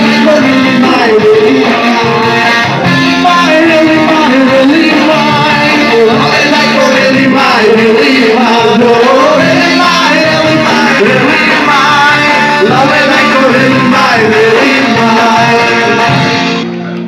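Live rock band playing a Nepali folk song, with sung vocals over electric guitar, bass guitar and drums. The music fades out at the very end.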